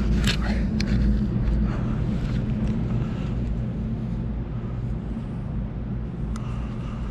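Steady low mechanical hum, with a few sharp clicks in the first second or so.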